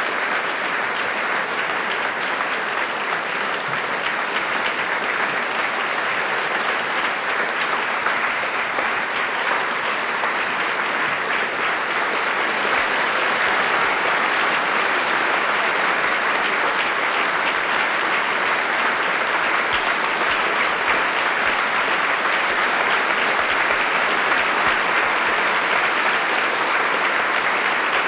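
A crowd applauding, a dense, unbroken clapping that holds steady, growing slightly louder about halfway through.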